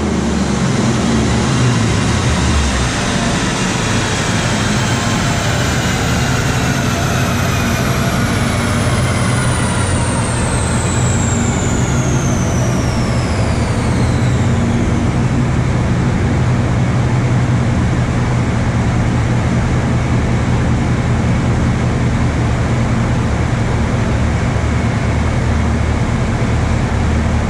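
Chevrolet Camaro SS 6.2-litre V8 with long-tube headers and a performance exhaust, running steadily with a deep, even rumble. A high whine falls slowly in pitch over the first fifteen seconds and fades out.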